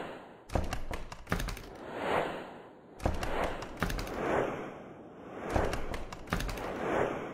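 Sound effects of an animated intro: a run of sharp hits, with noisy whooshes that swell and fade about every two seconds.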